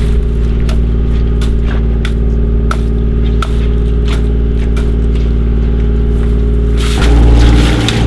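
Oyster barge's engine running steadily with a low drone, with scattered light clicks and rattles of shells as mesh oyster bags are handled. About seven seconds in, the engine gets louder and its note changes.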